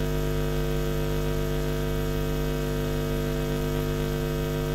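Steady electrical mains hum with many evenly spaced overtones, unchanging in pitch and loudness.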